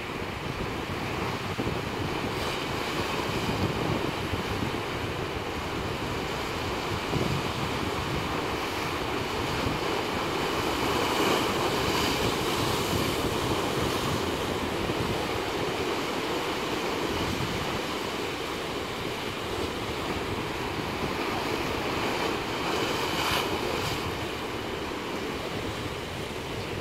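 Sea surf washing against rocks and concrete breakwater blocks in a steady rush. It swells louder about halfway through, and a wave splashes sharply near the end.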